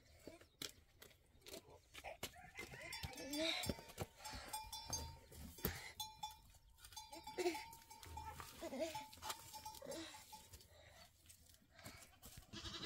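Goats bleating several times, short wavering calls, with scattered clicks and knocks between them.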